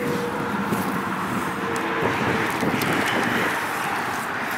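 Steady rushing outdoor background noise, with a few faint scrapes of a hand digging tool in wet clay soil.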